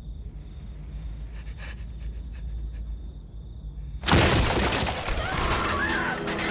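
Horror film soundtrack: a low rumbling drone with a faint high thin tone, then about four seconds in a sudden loud crash that carries on as loud noise with wavering high-pitched tones over it.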